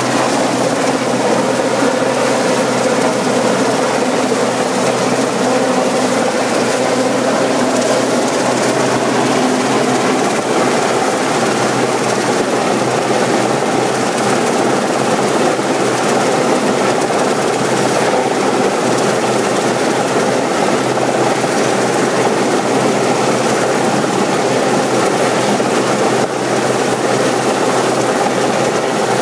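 RAF Westland Sea King search-and-rescue helicopter hovering low, its rotor and turbine engines making a loud, steady, unbroken noise.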